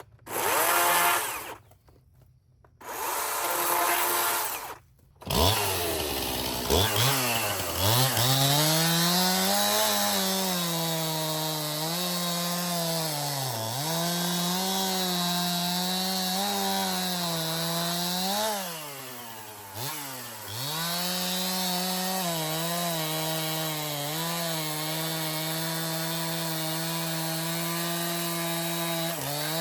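Stihl gasoline chainsaw: two short bursts in the first few seconds, then it starts about five seconds in and runs at high revs. Its pitch repeatedly dips and recovers as it bucks a log into firewood lengths.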